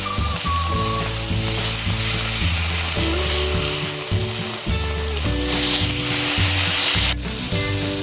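Food sizzling as it fries in a hot pan, over background music; the sizzle drops off abruptly near the end, then returns.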